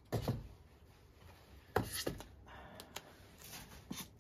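Handling noises from polystyrene foam blocks and a strip of Gorilla tape: a few short knocks, the loudest just after the start and just before the middle, with a brief rubbing sound in between.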